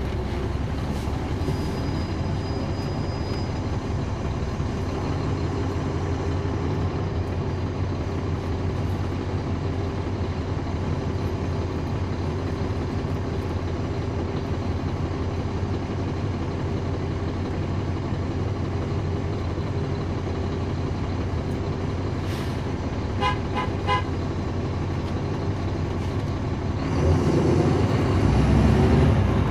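Caterpillar C13 ACERT inline-six diesel engine of a 2009 NABI 40-foot transit bus running steadily, heard from on board the bus. A few quick beeps sound about three-quarters of the way through, and near the end the engine grows louder.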